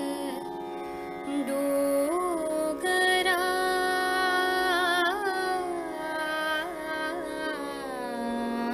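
A woman singing slow, ornamented phrases that glide up and down and waver with vibrato, over a steady drone; she settles on a long low held note near the end.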